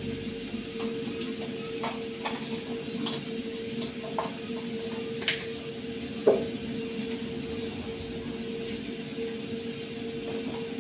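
Light clinks and knocks of kitchen utensils and dishes over a steady low hum, with one sharper knock about six seconds in.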